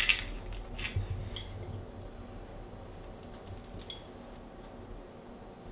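Light clicks and taps of dish handling as brownie bites are picked off a metal sheet pan and set onto a small plate. There are a few scattered taps early on, then a quick cluster of clicks about three and a half seconds in.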